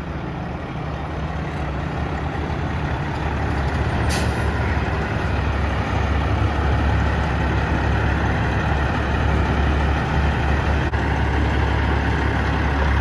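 Semi truck's diesel engine running with a low rumble that grows louder as the truck pulls up close. About four seconds in comes a brief hiss of air from the air brakes.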